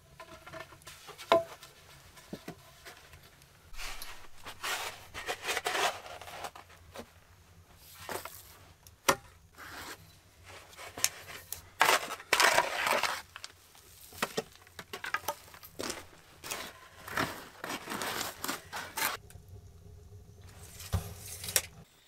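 Short-handled steel shovel scraping and scooping sandy soil in repeated strokes. A few footsteps and light knocks come before the shovelling starts.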